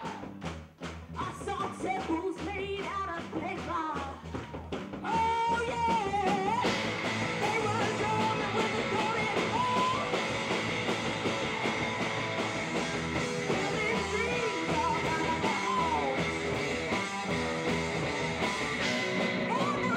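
Live rock band playing: a female vocalist singing over electric guitars and a drum kit. The full band comes in louder about five seconds in.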